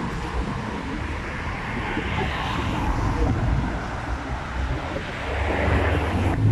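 Road traffic: cars driving past, with the rush of one going by about two to three seconds in and a low engine rumble building near the end.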